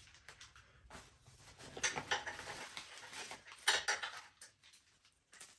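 Bolts and small metal hardware clinking and rattling as they are handled and started into the go kart's engine mounts, with louder clatters about two seconds in and again near four seconds.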